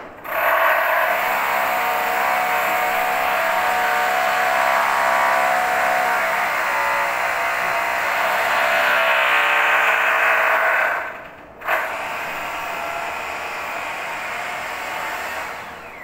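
Electric router running and cutting into a wooden door, routing the recess for a door lock. It stops about eleven seconds in, then starts again at a lower level and winds down near the end.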